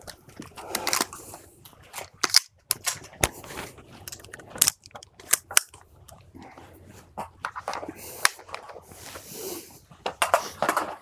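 AR-15 rifles being unloaded and made safe: a scattered series of sharp metallic clicks and clacks as magazines and actions are worked. A short rustle comes about nine seconds in.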